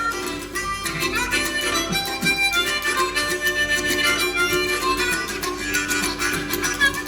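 Live band music: an instrumental break, with a lead line of bending notes over a steady rhythm section.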